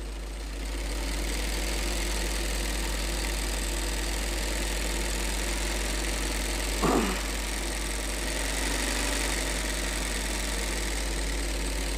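Motor-driven embroidery machine running steadily as it sews a pico (picot) edge along a dupatta hem, picking up about half a second in, over a low steady electrical hum. A brief falling tone is heard about seven seconds in.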